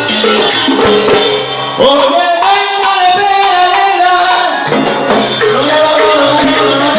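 Live salsa orchestra playing with percussion. About two seconds in the bass drops out under a long held note, and the full band comes back in near five seconds.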